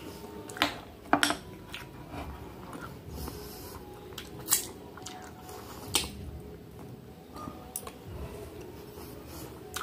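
A metal spoon scraping and clinking against a glass bowl as hard frozen dessert is scooped, with chewing in between. There are several short sharp clicks, the strongest about half a second and just over a second in.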